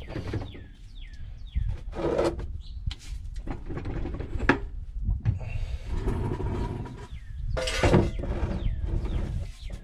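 Steel driveshaft slip yoke being wiggled and pulled out of a transmission's output by hand: metal knocks and scraping, with a quick run of short squeaks at the start. The loudest is a sharp clunk and scrape near the end as the yoke comes free.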